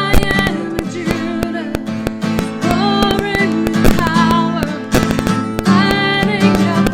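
Strummed acoustic guitar accompanying a singer whose held notes waver with vibrato, in a worship song.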